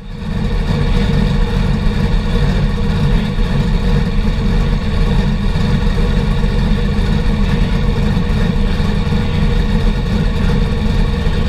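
Car engine idling steadily, loud and deep, with no revving.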